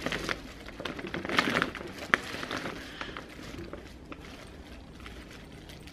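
Packaging rustling and crinkling: tissue paper and a plastic snack bag being handled and nosed. There is a sharp tick about two seconds in, and it goes quieter over the second half.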